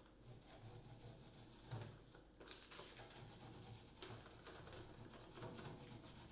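Faint rustling and scratching of graph paper being handled and rubbed over a raised glyph, with a couple of light knocks.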